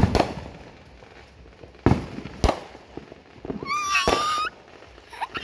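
New Year's fireworks going off: a few sharp bangs, the first about two seconds apart, then closer together. About three and a half seconds in, a small child gives a long, high squeal of delight that ends with another bang.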